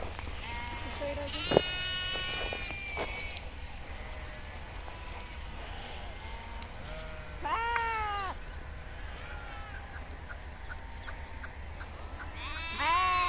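A flock of sheep bleating, with several overlapping calls in the first three seconds, another about seven and a half seconds in and a louder one near the end. A sharp click about a second and a half in.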